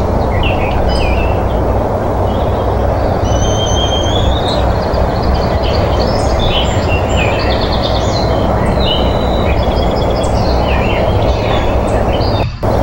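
Many wild birds chirping, trilling and whistling over a steady loud rushing background noise from the outdoor nest-cam microphone. The audio drops out for a moment near the end.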